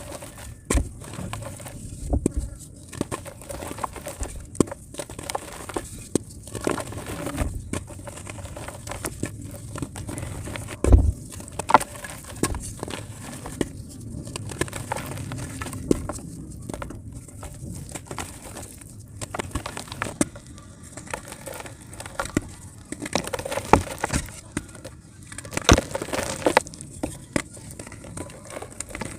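Multani mitti (fuller's earth clay) crumbling in water: a steady run of irregular small cracks, crackles and crumbling noises, with a louder thump about eleven seconds in.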